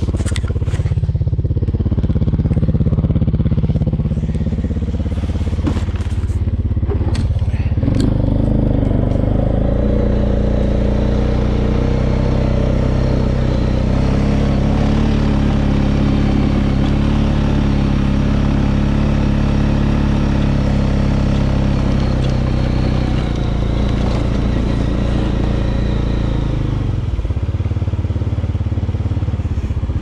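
A small gasoline engine running steadily. Its tones step up about eight seconds in, and its lowest note drops away near the end.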